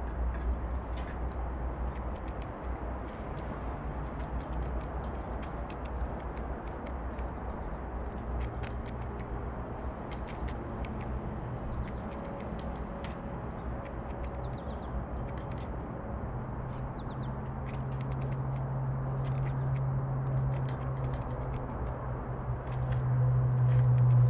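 Blue jay pecking and picking at peanuts in a feeder dish: scattered sharp taps and clicks, with a few faint high chirps partway through. Under it runs a low steady hum that comes in about a third of the way through and grows louder in the second half.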